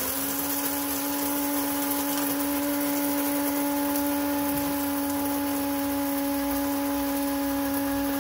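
Electric coffee grinder grinding coffee beans: an even motor hum over a steady grinding hiss, unchanging in pitch and level.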